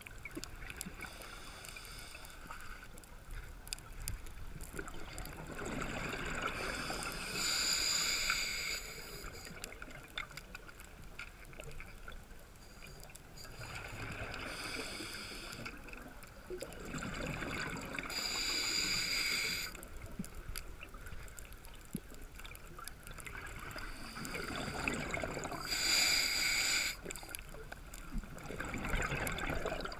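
Scuba diver breathing through a regulator underwater: rushes of exhaled bubbles about two seconds long, roughly every six seconds, with quieter stretches in between.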